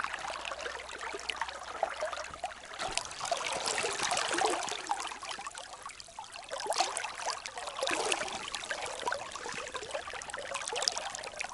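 River current babbling and trickling steadily, a continuous splashy rush of water.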